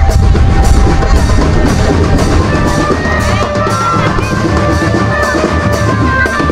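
Marching drum band playing on a steady beat: bass drums and snare drums with regular cymbal hits, and a melody of held notes over them.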